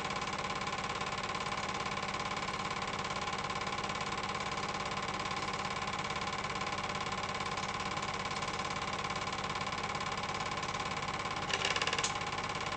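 Film projector running steadily with a fast, even mechanical clatter and whirr, as an old silent amateur film is played. There is a brief louder burst near the end before it fades out.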